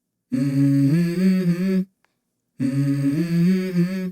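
A low voice humming a short melody in two phrases of about a second and a half each, holding and stepping between notes with a slight waver. Each phrase stops abruptly into dead silence.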